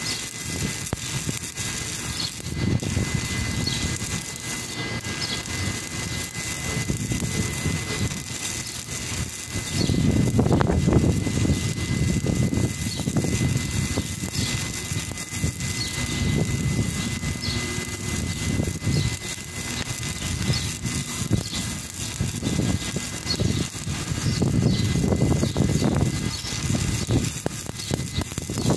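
Stick (shielded metal arc) welding on steel: the electrode's arc burns steadily with a continuous crackling hiss. A low rumble runs underneath and swells twice, about ten seconds in and again near the end.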